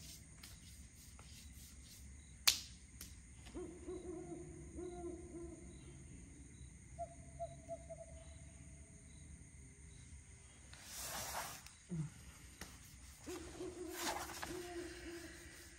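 Two low, wavering, trilling calls from a night animal, each about two and a half seconds long, with a weaker, higher call between them, over a faint, regular chirping. A sharp click comes a couple of seconds in, and a rustle of movement near the middle.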